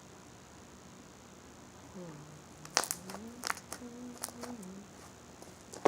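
A girl's low, wordless voice sliding up and down in pitch for about three seconds, with several sharp clicks over it and a louder click at the very end; before that, only faint room hiss.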